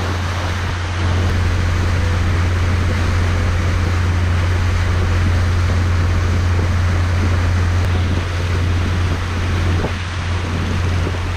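Steady low drone of a boat's motor under a constant rush of water and wind.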